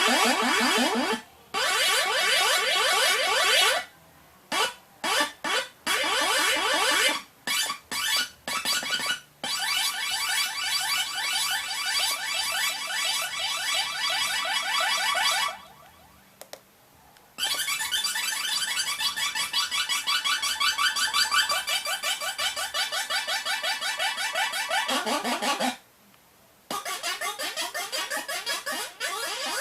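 Electronic sound-effects synthesizer putting out harsh, buzzy alarm-like tones that warble with fast repeated pitch sweeps. The tones come in bursts: a run of short bursts a few seconds in, then longer stretches broken by pauses of a second or two.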